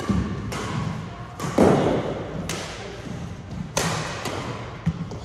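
Badminton rally: rackets striking the shuttlecock about six times, roughly once a second, each hit a sharp crack ringing in a large echoing hall, the hardest hit about a second and a half in.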